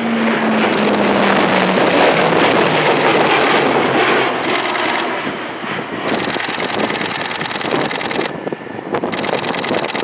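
Northrop Grumman E-2 Hawkeye's twin turboprop engines during a display pass, loud and continuous. Over the first two seconds a tone drops in pitch as the aircraft flies past.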